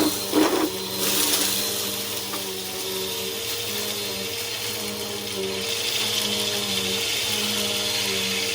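Bissell PowerForce Helix upright vacuum cleaner running steadily, its motor hum and rushing airflow rising and falling slightly as it is worked back and forth. A couple of brief crackles come in the first second.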